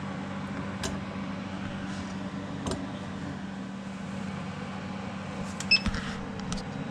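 Steady hum of a fuel-injector cleaning and testing machine, with a few light clicks from the injectors being handled. A brief high beep, the loudest sound, comes near the end, and then a low tone begins to fall slowly in pitch.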